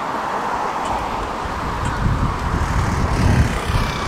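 Steady city traffic noise, with a low rumble growing louder about halfway in.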